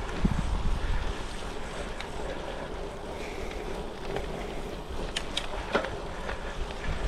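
Wind rushing over the microphone on a moving gravel bike, mixed with the rolling noise of Goodyear Connector gravel tyres on a trail. A few sharp clicks come a little past halfway.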